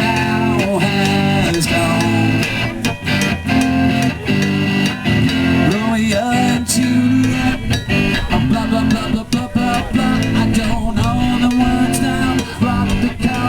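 Guitar playing an improvised tune, with sharp hits scattered through it.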